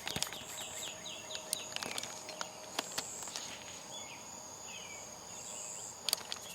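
Night insects, crickets or similar, trilling steadily in a high, even drone, with a few sharp clicks scattered through it.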